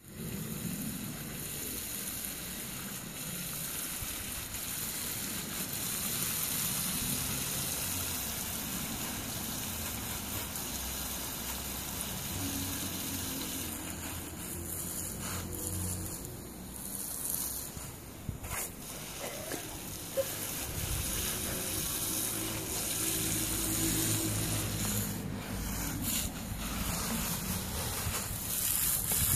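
Water hissing steadily from a garden hose spray nozzle.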